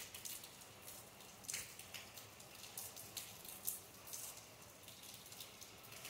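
Light rain falling: a soft steady hiss with irregular, separate drops and drips striking close by.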